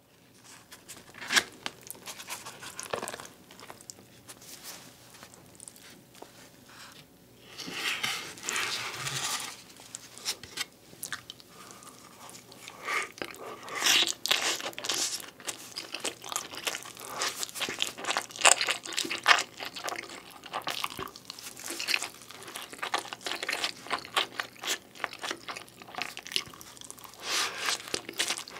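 Close-miked eating of beef pizza: bites into the crust and chewing, heard as a dense run of irregular crunches and crackles that come in louder spells.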